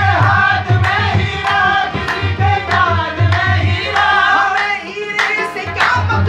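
Qawwali: male voices singing over a steady hand-drum beat, about two strokes a second. The beat eases off briefly near the end.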